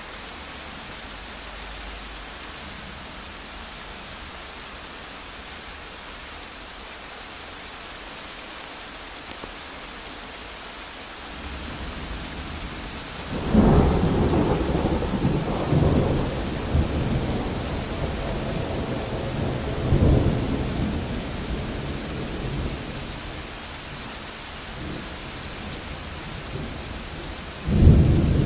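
Steady rain falling. About halfway through, thunder builds from a low rumble into a loud clap that rolls on for several seconds with further swells, and another loud clap breaks right at the end.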